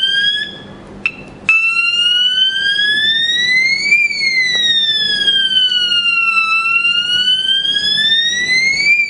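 LONGSIN LS-104 electronic strobe siren sounding a slow wail. It cuts out for about a second near the start, with a click, as the tone is switched. It then comes back, rising and falling in pitch with each sweep taking about five seconds.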